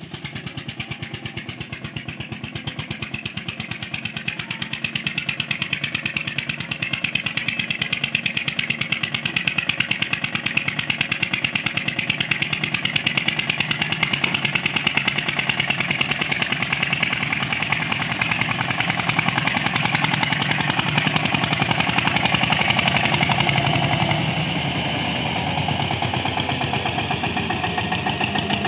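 Eicher 241 tractor's single-cylinder diesel engine chugging steadily under load as it hauls a full trolley of sugarcane, getting louder as it approaches over the first ten seconds or so and easing off slightly about three-quarters of the way in.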